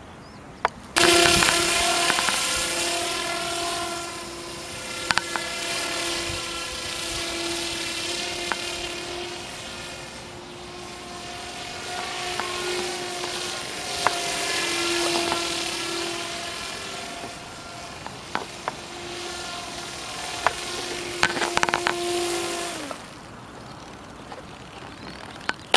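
Radio-controlled Magnus-effect model aircraft in flight: a steady motor-and-propeller whine whose pitch bends up and down as it flies about, with a few sharp clicks. Near the end the whine drops in pitch and fades.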